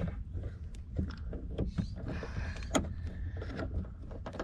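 Scattered, irregular small metallic clicks and taps as a socket extension is turned and handled by hand on a bolt in a car door's mirror mount, one tap about three quarters of the way through louder than the rest, over a steady low rumble.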